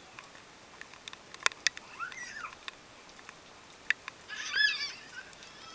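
A toddler's high-pitched squeal about two seconds in, then a louder, wavering squeal near the end, over scattered sharp ticks of raindrops.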